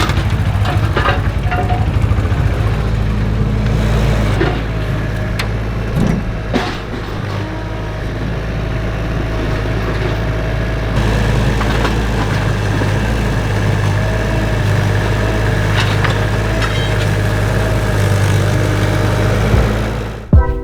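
An engine of heavy construction equipment running steadily, with a few sharp clanks now and then.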